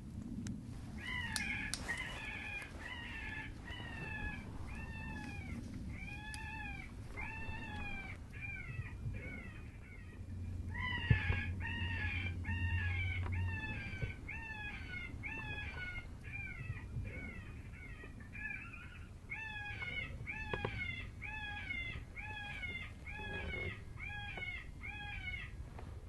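Predator call sounding a rabbit distress cry: a long series of wailing, rise-and-fall squalls repeated a little more than once a second, in runs broken by short pauses. The cries are meant to lure a coyote in.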